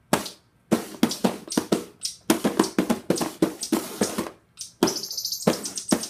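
Hands drumming a rapid rhythm of taps and slaps on a cardboard Loot Crate box, played as an improvised drum, with a short scraping hiss just before five seconds in.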